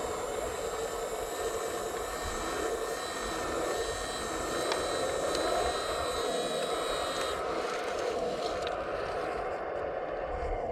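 Electric motors and hydraulic pump of 1/15 scale RC construction models running with a steady whirring whine. The higher whine drops away about three-quarters of the way through.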